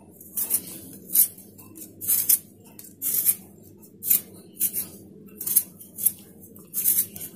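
Vegetable peeler scraping the skin off a raw potato in short repeated strokes, about one or two a second.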